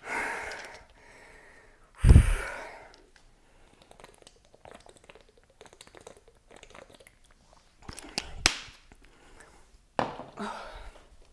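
Handling of a plastic water bottle and drinking from it, with small taps and crinkles, a dull thump about two seconds in and a sharp click later on.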